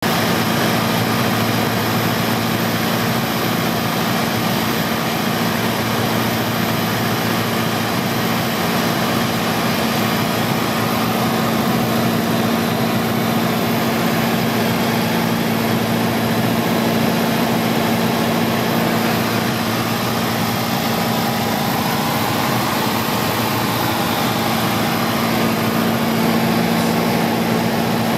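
Light aircraft's engine and propeller droning steadily, heard from inside the cockpit on approach, with an even rushing cabin noise underneath.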